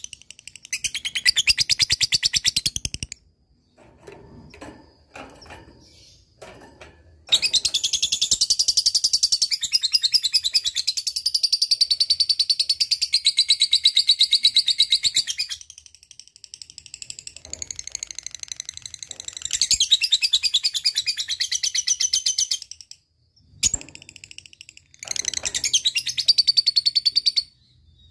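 Lovebird singing its 'ngekek' song: long, very rapid, high-pitched chattering trills in four phrases with short pauses between them. The longest phrase runs about eight seconds in the middle.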